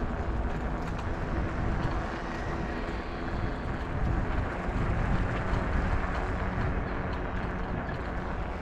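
Steady rushing noise of a bicycle ride on a paved road: wind over the microphone mixed with tyre rumble.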